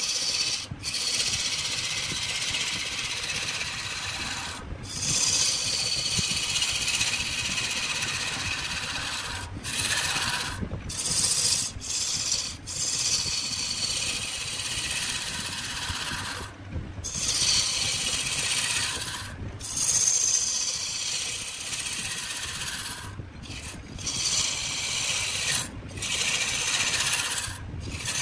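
Wood spinning on a lathe, worked by a turning tool or abrasive: a continuous hissing scrape that breaks off for a moment every few seconds as the tool leaves the wood.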